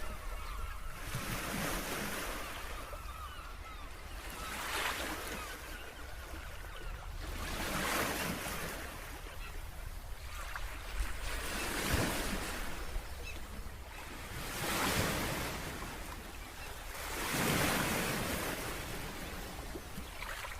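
Ocean surf breaking on a beach, one wash of waves swelling and fading about every three seconds, over a steady low rumble of wind.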